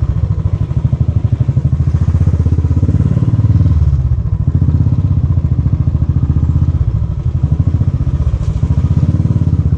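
Royal Enfield single-cylinder motorcycle engine running at low speed with a steady, pulsing exhaust beat as the bike rolls slowly, easing briefly about four seconds in.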